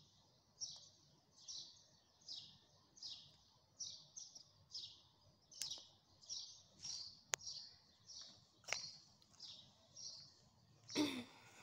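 A small bird repeating a short, high chirp that falls in pitch, about once or twice a second, with a few sharp clicks between. Near the end a person coughs.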